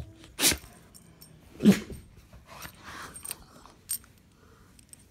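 Rottweiler making two short throaty vocal sounds, the louder one about a second and a half in, amid light rustling and handling noise.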